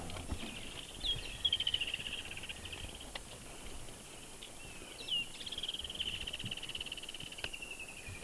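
A high, pulsed trilling call from the bush, heard twice: each time a short upward flick, then a rapid trill that slowly falls in pitch over two to three seconds. A few faint clicks in between.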